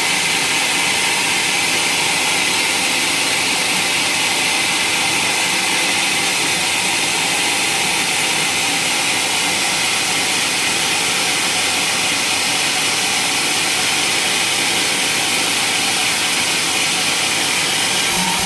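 Sawmill running and sawing through wood: a loud, steady, unbroken hiss-like saw noise, strongest in the upper range.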